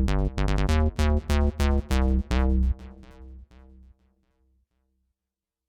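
A bass voice on a Yamaha PSR-SX900 arranger keyboard, recorded straight from the keyboard, plays a quick run of short notes with sharp attacks. A few softer notes follow and die away about four seconds in.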